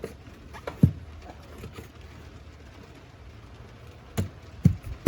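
A few short knocks and clunks of parts being handled in the engine bay, spread out with quiet between them: one about a second in and a cluster near the end.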